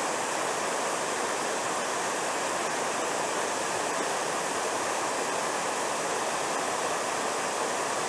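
Small waterfall cascading down stepped rock ledges into a shallow creek pool: a steady rush of falling and splashing water.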